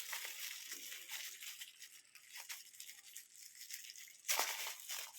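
Plastic packaging being handled and opened, a faint crinkling and rattling with a louder rustle about four seconds in.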